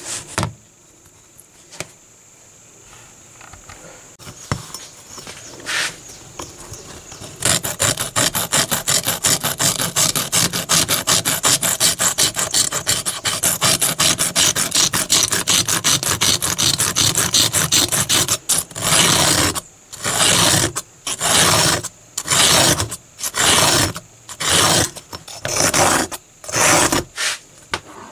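Rust being scraped off a steel knife blade with a hand-held pointed metal tool. It begins as a fast run of short scraping strokes and, past the middle, turns into about a dozen slower, separate strokes, roughly one a second.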